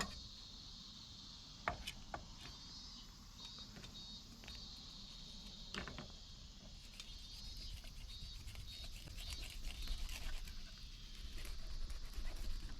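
Meat sizzling and crackling in a steak pan over a campfire, a steady spitting hiss that grows busier in the second half, with a couple of light clicks of metal utensils.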